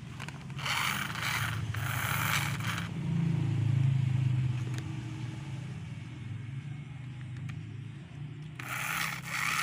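Small DC motor of a wired remote-control toy car running and turning its plastic gears: a steady low hum that swells about three seconds in and then eases, with bursts of scraping plastic rattle near the start and again near the end. It runs only while the wire is pressed onto the motor terminal, whose solder joint is weak and coming loose.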